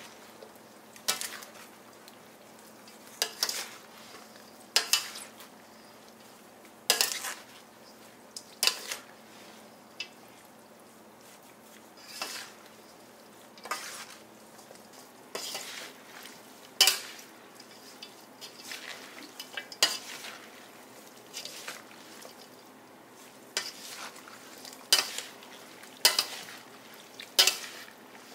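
A spoon clinking and scraping against a large stainless steel mixing bowl as shredded green papaya salad is tossed, a sharp clink about every one and a half seconds with the shreds rustling in between.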